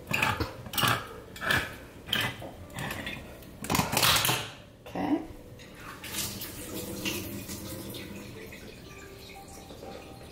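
Metal kitchenware clinking and scraping: several sharp knocks about a second apart, then a louder, longer scrape about four seconds in, followed by fainter clatter that dies down.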